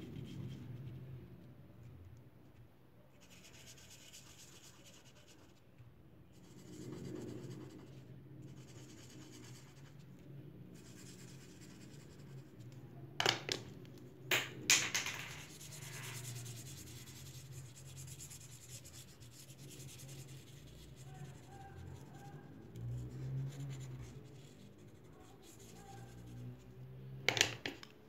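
Felt-tip markers scratching and rubbing on paper as small areas are coloured in. A few sharp clicks come as the pens are handled, three together about halfway through and one more near the end.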